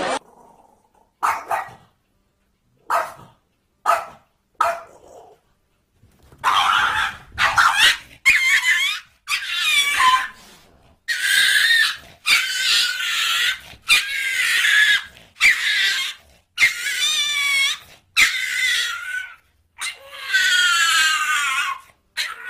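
Small dogs barking and yapping in short high-pitched calls: a few single yaps at first, then a fast run of yapping barks that waver in pitch.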